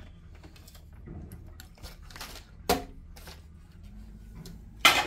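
Handling noise from bench equipment being moved by hand: scattered clicks and rustles, with a sharp knock about two and a half seconds in and a louder knock near the end, over a low steady hum.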